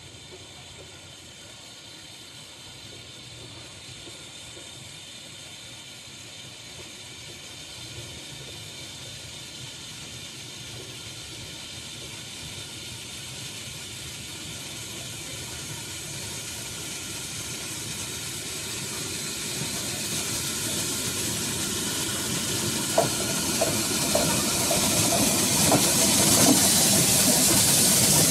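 2-6-4 Class 4 tank steam locomotive No 80080 approaching with its train, the hiss of steam and the running of engine and carriages growing steadily louder as it nears. A few sharp knocks come near the end as it draws close.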